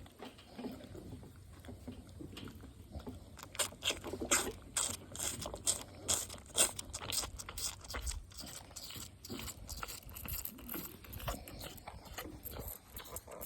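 A bottle calf sucking on a milk bottle's rubber nipple: a run of irregular clicks and scrapes, densest through the middle.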